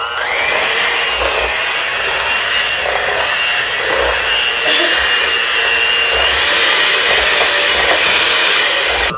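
Electric hand mixer running steadily, its beaters whipping a pot of mashed potatoes, then it stops near the end.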